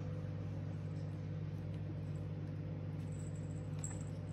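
A steady low machine hum, made of several even tones, with a few faint ticks near the end.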